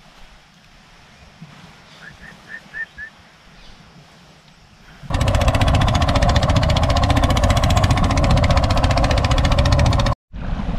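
A small boat engine running, a loud rapid even chugging that starts suddenly about halfway through and cuts off near the end. Before it, a quiet stretch with a few short high chirps.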